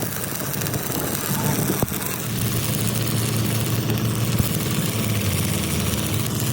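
An engine running steadily at a low idle-like hum, with a couple of sharp metallic knocks.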